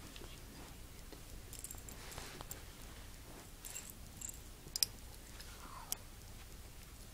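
Quiet rustling handling noise with a few sharp plastic clicks in the second half, from Lego minifigures being moved about on a carpet.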